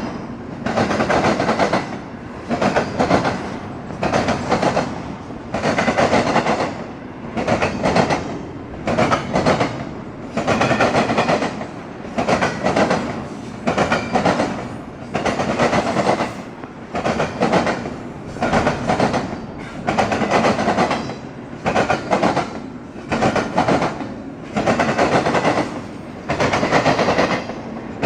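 Freight cars rolling past, their wheels clattering over rail joints in an even rhythm of about one beat a second.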